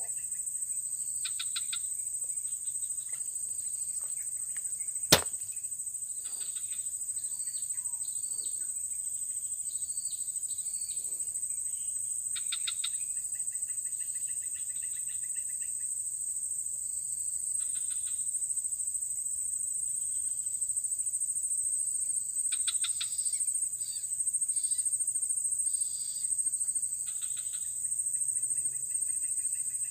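Steady high-pitched drone of insects, with short rapid trilled calls breaking in every few seconds. A single sharp click comes about five seconds in.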